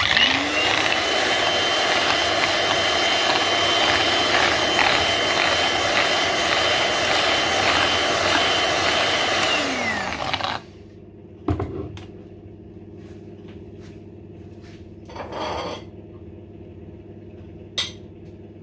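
Electric hand mixer with twin wire beaters whipping heavy cream and sugar toward stiff peaks: the motor runs with a steady whine for about ten seconds, then winds down in pitch and stops. Afterwards a single knock and a brief rustle.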